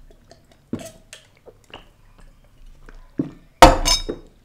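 Soft swallowing clicks from drinking out of a glass, then a glass tumbler put down on a wooden table with a sharp knock near the end, the loudest sound here.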